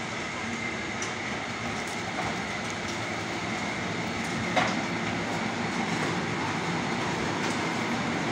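A row of electric-motor-driven palm kernel oil expellers running together: a steady, dense mechanical noise with a constant high whine, and one sharp knock about four and a half seconds in.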